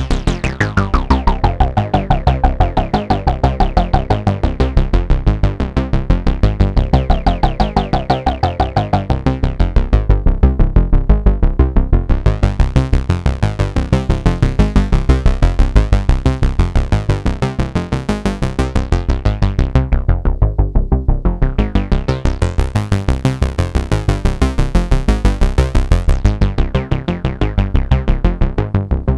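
Arturia MatrixBrute analog synthesizer playing a fast repeating bass sequence through its built-in Steiner-Parker and ladder filters. A resonant filter sweep glides down in the first couple of seconds, and the brightness then opens and closes as the cutoff is moved, going dull twice.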